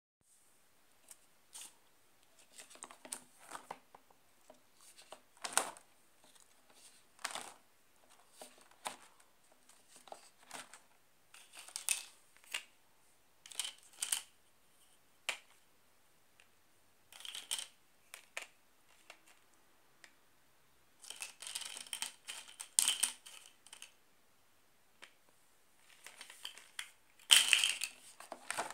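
Irregular taps, clicks and rustles of hands handling a laminated activity binder and plastic bottle-cap number pieces, with a louder rustle near the end as a page is turned.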